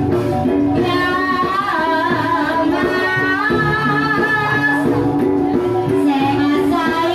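Ebeg accompaniment music: a Banyumasan gamelan ensemble playing a steady, repeating melody, with a singer's wavering, ornamented vocal line over it.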